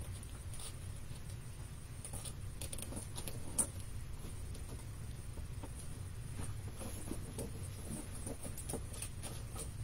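Faint scratching, rustling and tapping of fingers and paper on a small paper-covered chipboard box as it is squeezed and adjusted, with one sharper click about three and a half seconds in, over a low steady hum.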